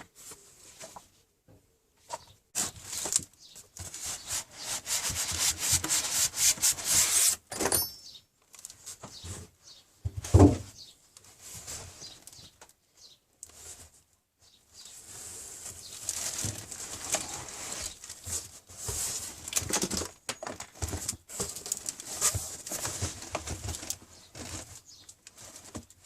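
Packaging being handled as parts are lifted out of a box: long stretches of rubbing, scraping and rustling, with a single low thump about ten seconds in, the loudest sound.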